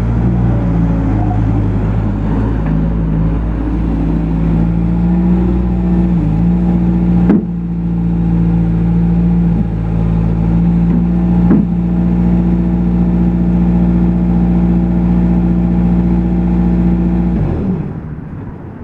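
2012 Bobcat S150 skid steer loader's diesel engine running, stepping up from a low idle to a higher speed a couple of seconds in, with a few brief dips in pitch and two sharp clicks. Near the end it is shut off and winds down.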